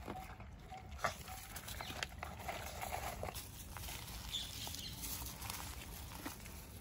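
Stray puppies eating from plastic bowls and dogs moving about on dry leaves and dirt: scattered light clicks, crunches and rustles.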